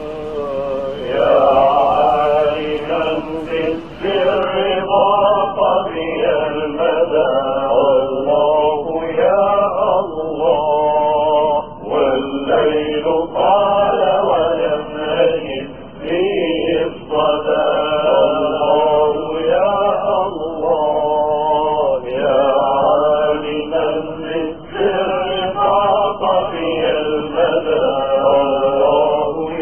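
A man's voice chanting unaccompanied in long phrases a few seconds each, the pitch bending and wavering within the held notes, with short breaks between phrases.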